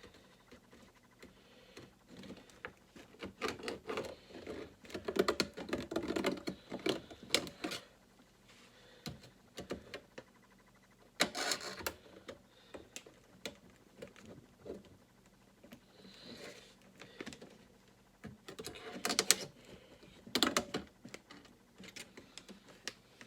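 A knife tapping and scraping at an aluminium drink can, in many small irregular clicks and scratches with a few louder bursts.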